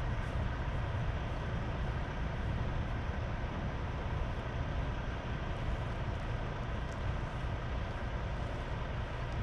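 Steady low outdoor rumble with no firework bangs or cracks.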